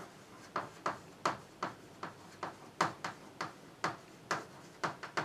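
Chalk writing on a chalkboard: a quick run of short taps and clicks as the chalk strikes and drags across the board, two or three a second.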